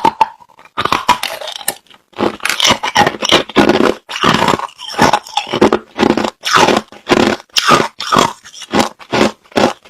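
Mouth chewing clear, hard crushed ice: a run of loud crunches, roughly two a second, after a brief pause about half a second in.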